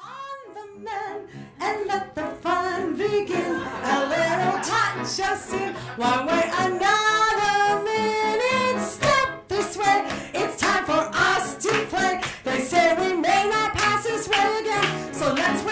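A woman singing a musical-theatre song into a microphone with instrumental accompaniment, starting just after a brief pause.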